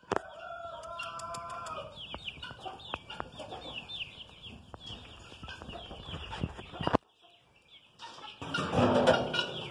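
A flock of young hens clucking and chirping, with one drawn-out call at the start. After a short gap near the end comes a louder, noisier clatter.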